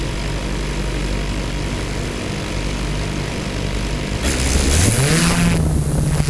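Multirotor drone's electric motors and propellers running at idle with a steady hum, then spooling up about four seconds in with a rising whine and louder propeller noise as the drone lifts off.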